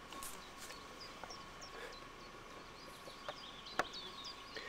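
Faint outdoor ambience: a small bird's short high chirps repeating every half second or so, with a few soft clicks and a faint steady hum underneath.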